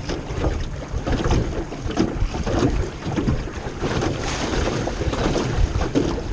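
Wind buffeting the microphone over water lapping and splashing against a small jon boat's hull as it moves across the lake: a continuous rumbling noise with irregular surges.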